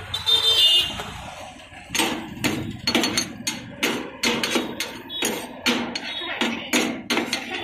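Steel cleaver chopping shaved chicken shawarma meat on a flat steel counter top: rapid, repeated metallic chops, about two to three a second, beginning about two seconds in. A short, high-pitched sound comes before them, about half a second in.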